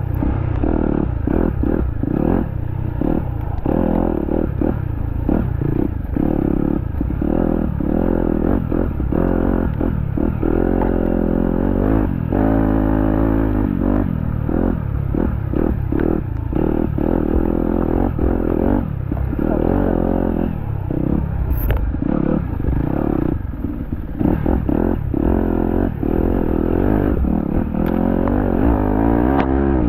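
Enduro dirt bike engine revving up and down over and over as the throttle is worked through the woods, with frequent short knocks and rattles from the bike.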